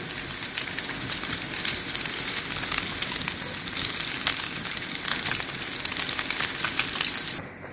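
Cubes of pork frying in their own rendered fat in a nonstick pan: a steady sizzle with fine crackles as the pieces are turned with a spatula, the fat cooking out so that the meat browns crisp. The sizzle drops away near the end.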